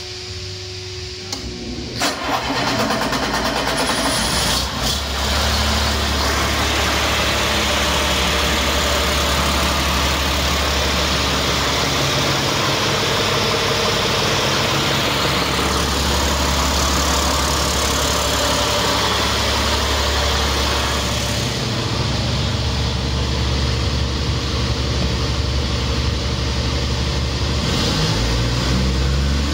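2008 Caterpillar C7 ACERT inline-six diesel engine starting up about two seconds in, then running steadily at idle. Near the end its pitch begins to rise as it is revved.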